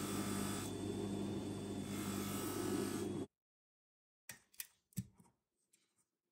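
Bench polishing motor running with a buffing wheel as a watch bracelet link is held against it: a steady hum with a hiss that brightens twice, cutting off suddenly about three seconds in. After a pause, a few light clicks and taps.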